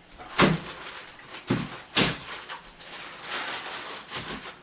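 A chunk of ice being struck to break it up: three sharp knocks about half a second, a second and a half and two seconds in, then softer knocking.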